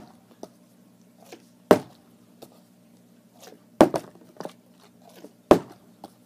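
Partly filled plastic water bottle flipped and landing with a thud three times, about two seconds apart, each thud followed by a few lighter knocks as the water and bottle settle.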